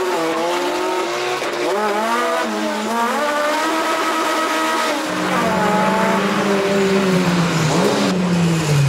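Toyota AE86 Trueno's carbureted engine revving up and down hard while drifting, heard from inside the cabin. About five seconds in the sound changes to a steadier, lower engine note that slowly falls in pitch.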